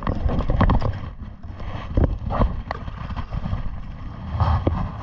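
Irregular knocks and clatter on a small wooden fishing boat over a steady low rumble of wind and water.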